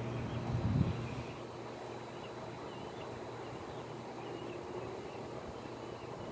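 Outdoor ambience: a steady low hum with a brief louder rumble about a second in, after which the hum fades and faint high chirps sound over a quiet background.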